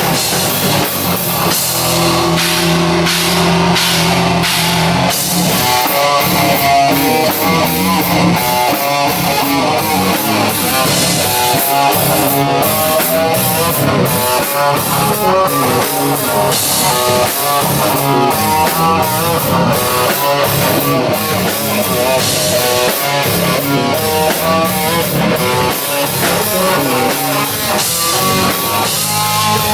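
Live rock band playing an instrumental passage with electric guitar and drum kit, the guitar picking out fast runs of notes.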